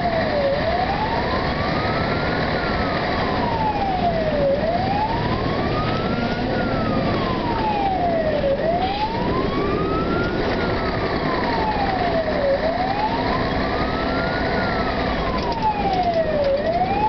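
Fire engine's siren wailing in a slow rise and fall that repeats about every four seconds, over the steady rumble of the truck's engine and tyres on the road.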